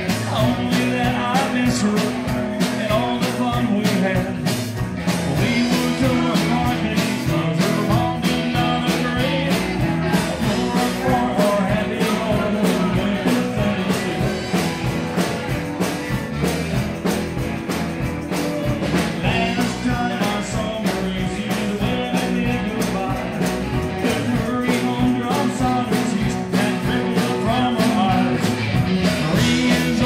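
Live rock band playing amplified: electric guitar, bass guitar, keyboard and drum kit, over a steady drum beat.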